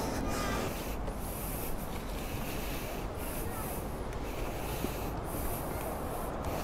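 Steady rushing and rubbing noise of wind and handling on a handheld camera's microphone, with low rumble and hiss that swells and fades every second or so.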